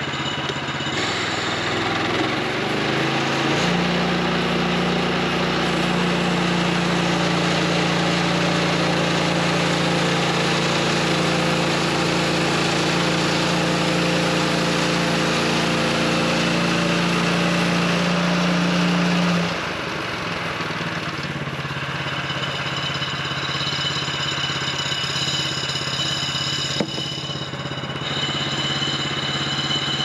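Woodland Mills HM126 portable band sawmill's gas engine throttles up over the first few seconds and runs steadily at high revs while the band blade cuts through a spruce log. About twenty seconds in it drops back to idle.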